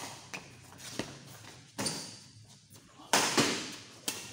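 Badminton rally: rackets striking the shuttlecock in a series of sharp hits at uneven intervals. The loudest pair of hits comes about three seconds in, and each hit echoes briefly in the hall.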